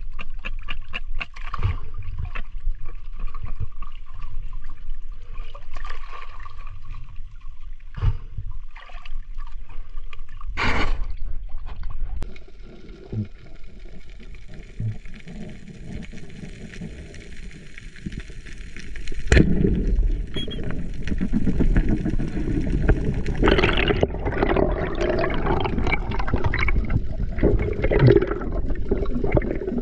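Water sloshing and crackling around an action camera at the surface, then the muffled rush and gurgle of water over the camera underwater. A sharp click comes a little past the middle, after which the water noise grows louder.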